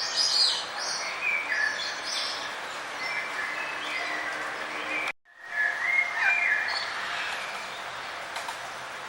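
Several birds chirping and trilling in short, overlapping calls over a steady outdoor hiss. The sound drops out almost completely for a moment about five seconds in, then comes back.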